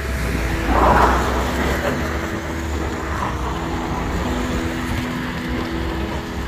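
Road traffic on a wet road: a vehicle passes close about a second in, over a steady low rumble of traffic.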